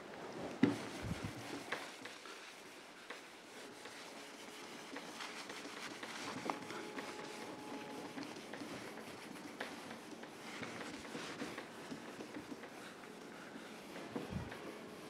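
Faint rubbing of a whiteboard eraser wiped back and forth across a whiteboard, with a few light knocks.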